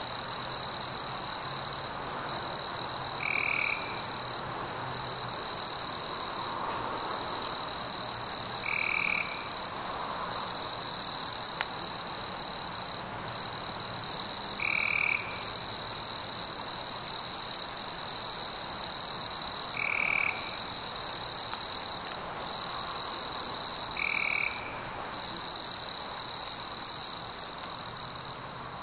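Insects trilling in a steady, high-pitched chorus, broken only by brief gaps. A short, lower call from another animal repeats about every five seconds.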